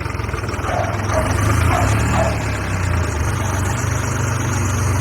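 Tractor diesel engine running steadily with an even low throb.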